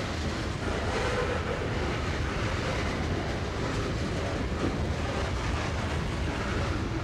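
Norfolk & Western Class A 2-6-6-4 articulated steam locomotive #1218 working hard up a grade, its exhaust making a dense, steady rumble.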